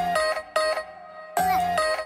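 Background music: a bright, plucked or chimed melody repeating a short phrase about every second and a half.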